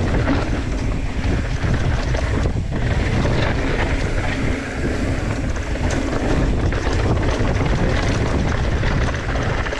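Wind rushing over the microphone on a mountain bike running fast down a dirt and rock trail, mixed with the tyres rolling and the bike rattling over the rough ground, with frequent small knocks.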